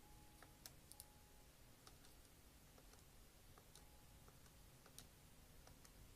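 Faint, irregular clicks of a scientific calculator's plastic keys being pressed one at a time as a calculation is keyed in.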